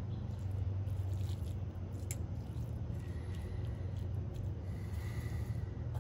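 Fork stirring and fluffing cooked spaghetti squash strands in the shell, soft squishing with a few light clicks, over a steady low background hum.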